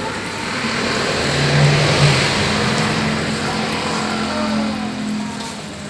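A motor vehicle passing on the street, its engine noise swelling to a peak about two seconds in and then fading away.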